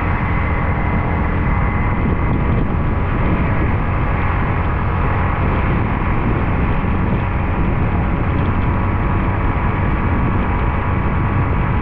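Motorcycle riding at a steady speed on a wet road: constant wind rush on the microphone, mixed with engine drone and tyre hiss on the wet tarmac.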